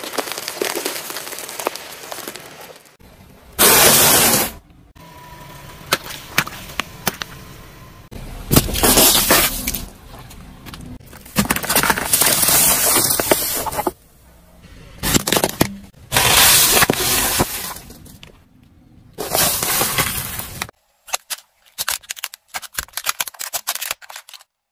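A car tyre rolling slowly over a series of objects and crushing them, in short clips cut one after another: crunching and cracking of hard candy coating, plastic soda bottles bursting and spraying their drink, and brittle chalk and clear plastic cups snapping. Near the end come sparse, sharp separate cracks.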